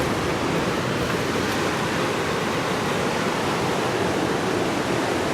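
Steady rushing of ocean surf, an even wash of noise with no distinct breaks or impacts.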